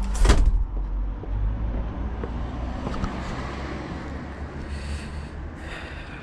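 Steady low outdoor rumble with faint hiss above it. A single loud knock comes right at the start.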